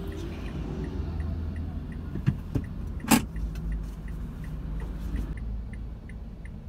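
A car's interior at low speed, with a steady low engine and road rumble and small regular ticks about three a second, typical of a turn-signal indicator while the car pulls over. About three seconds in there is a sharp click, the loudest moment, after two fainter clicks.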